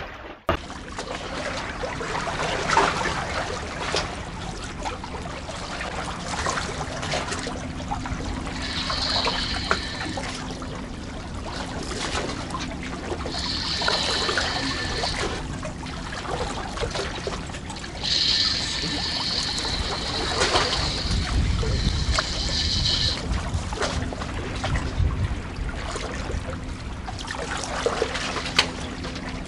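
Seawater lapping and trickling among concrete tetrapods. Several times a higher whirr runs for a few seconds: a spinning reel being cranked while the rod is bent by a hooked fish.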